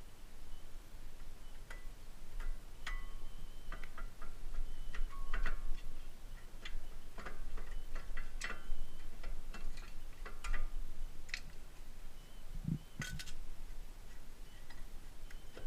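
Irregular metallic clicks and clinks from hand tools and brake parts being handled, several leaving a brief ringing tone, with a duller knock about three-quarters of the way through.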